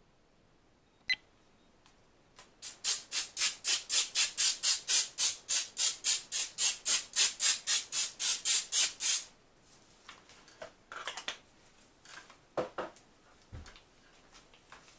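Aerosol cooking spray hissing in rapid pulses, about four a second for some six seconds, as a baking pan is greased. A single click comes about a second in, and a few softer knocks follow once the spraying stops.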